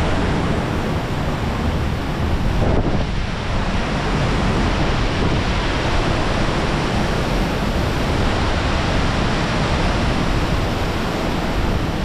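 Steady, loud roar of a waterfall dropping into a narrow rock gorge, mixed with a shallow stream rushing over stones, and low buffeting from spray and wind on the microphone.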